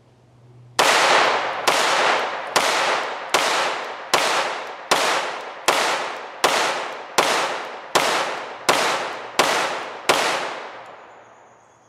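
Beretta 80X Cheetah .380 ACP pistol firing Norma NXD 58-grain rounds: thirteen shots in steady rapid fire, about one every three-quarters of a second, each followed by a short fading echo.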